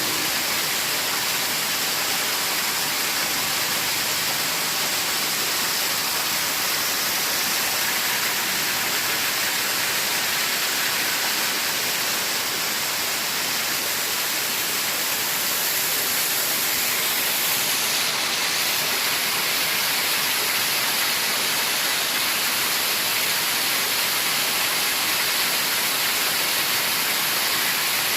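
Steady, loud hiss of even noise, like static, that does not change.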